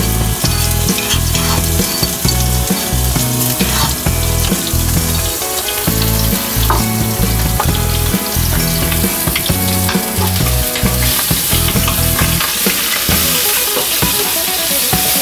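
Ground spice paste sizzling steadily as it fries in hot oil in a wok.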